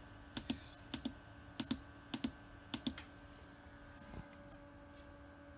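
Small tactile push button on a breadboard pressed and released five times in quick succession, each press a sharp double click. A faint low thump follows about four seconds in, over a faint steady hum.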